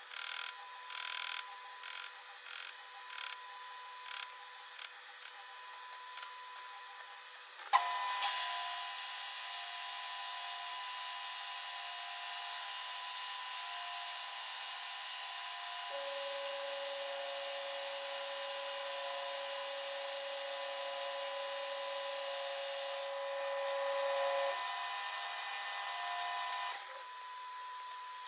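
A piston is tapped with a mallet in a metal lathe's chuck, about nine light knocks, to true it against a dial indicator. About eight seconds in, the lathe starts and runs steadily with a high whine; a lower tone joins it partway through, and the lathe stops near the end.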